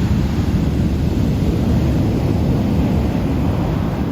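Heavy ocean surf with wind buffeting the microphone, a loud, steady low rumble with no breaks.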